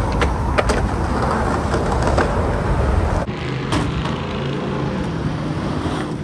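Skateboard wheels rolling with a steady rumble, broken by a few sharp clacks of the board. About three seconds in the sound changes as the skateboard rolls along a ridged sheet-metal roof, with one knock soon after.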